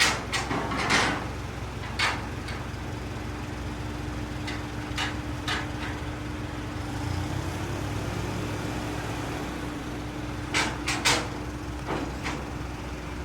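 A vehicle engine idling with a steady low rumble and hum, with scattered clicks and knocks like doors or latches, a cluster of them about eleven seconds in.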